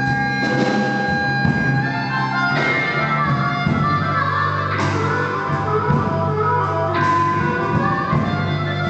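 Blues band playing an instrumental passage, held notes over a steady low line, with a strong accent on the beat about every two seconds.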